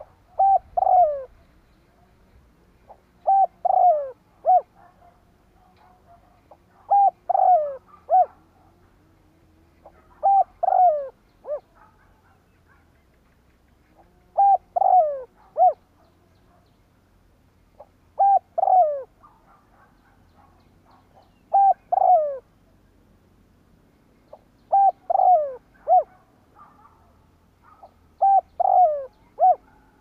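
Spotted dove cooing its repeated call, a phrase of three or four falling coos about every three to four seconds, nine phrases in all. This is the male's cooing used by decoy birds to call in rival wild males.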